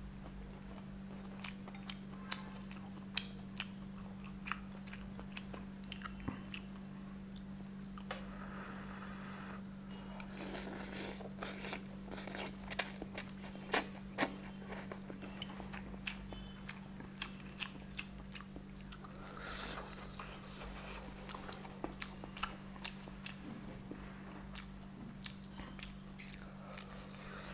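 Close-up eating sounds: crunching and chewing of crispy fried chicken, with a denser stretch of noodle slurping around the middle.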